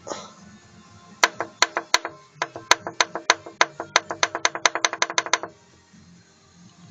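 Honda J25A V6 engine knocking: a run of sharp knocks, each with a short metallic ring, irregular at first and then coming faster, about six a second, before stopping abruptly. This is the connecting-rod knock of worn rod bearings.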